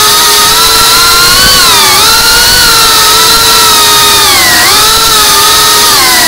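GEPRC CineLog35 FPV cinewhoop's brushless motors and ducted propellers whining loudly, the pitch sagging and climbing back several times as the throttle is eased off and pushed again.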